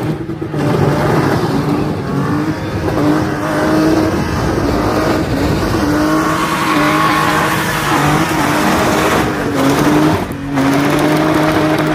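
Box-shape BMW 3 Series spinning, its engine held high in the revs with small rises and dips and its rear tyres squealing continuously as they spin against the tarmac.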